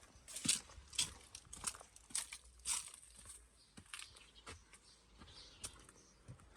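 Footsteps of a person walking at about two steps a second, each step a short crackly scuff, louder in the first three seconds and fainter after.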